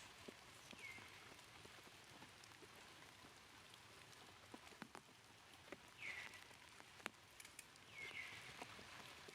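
Near silence: a faint hiss with scattered light ticks and three brief, high, downward chirps.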